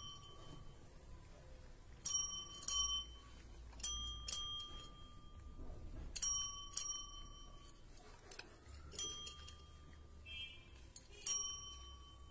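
Desk service bells struck by cats' paws: about eight short dings, often two in quick succession, each ringing briefly before dying away.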